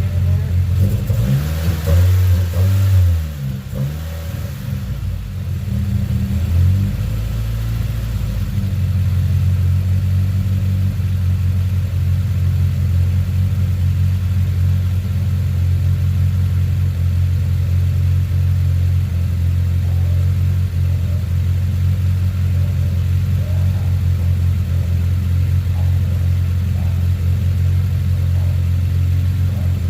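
Turbocharged Honda Civic four-cylinder engine running on a newly fitted idle air control valve. It rises and falls in pitch briefly at first, then settles into a steady idle.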